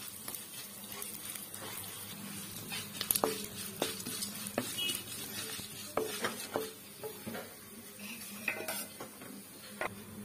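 Whole spices (fennel, peppercorns, cumin, cinnamon, cardamom) sizzling softly in hot oil in a kadai, being sautéed for a masala. A spatula stirs them, scraping and tapping against the pan several times.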